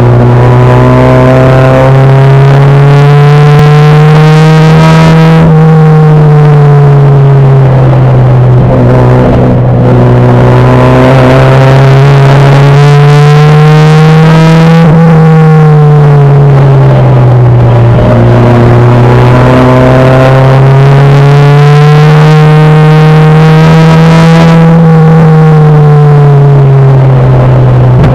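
Four-cylinder engine of a front-wheel-drive enduro race car, heard from inside the cabin, running hard and loud on the oval. Its pitch climbs steadily for about five seconds and then falls away, three times: accelerating down each straight and backing off for the turns.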